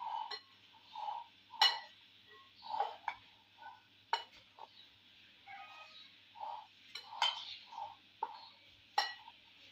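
A metal spoon stirring chopped vegetables and spices in a glass bowl: a soft rhythmic swish of the mix about once a second, with several sharp clinks of the spoon against the glass.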